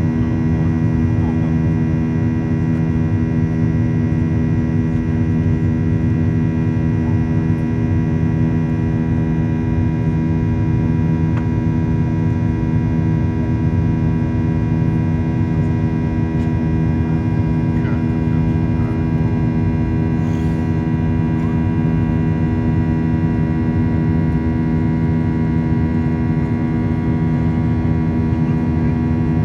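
Steady cabin drone of a Boeing 737-800 with its CFM56-7B jet engines running: a heavy low rumble with several steady engine tones held over it.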